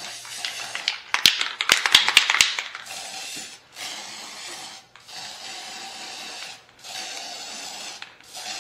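Aerosol spray-paint can giving a run of short hissing sprays with brief pauses between them. About a second in comes the loudest part, a quick rattle of sharp clicks from the can's mixing ball.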